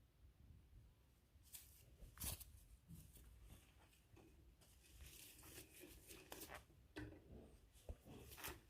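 Faint, scattered scratching and tearing crackles as a green-cheeked conure chews and picks at the fabric of a pocket.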